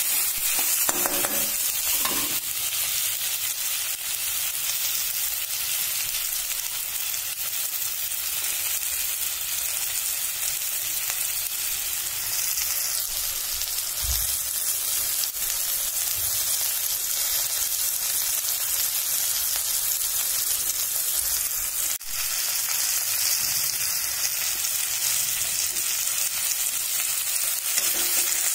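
Cashews, onion and tomato pieces frying in oil in a metal kadhai, with a steady sizzle as a spatula stirs them.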